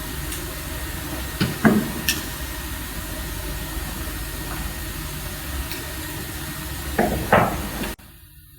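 Hand work on the wiring of a DIN-rail enclosure: a few small clicks and knocks, a cluster about a second and a half in and two more near the end, over a steady hiss. The hiss stops suddenly near the end.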